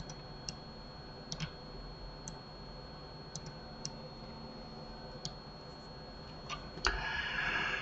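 Scattered computer mouse clicks, about nine at irregular intervals, over a faint steady high whine. A soft hiss comes in near the end.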